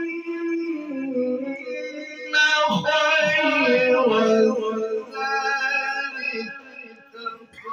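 A man reciting the Quran in melodic tajweed style into a microphone, drawing out long held notes that wind slowly up and down in pitch. A new phrase begins loudly about two seconds in, and the voice trails off near the end.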